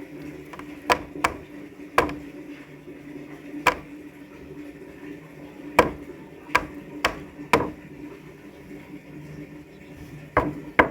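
Chang fish (snakehead) thrashing and knocking against the sides of a plastic tub: about ten sharp knocks at irregular intervals, over a steady low hum.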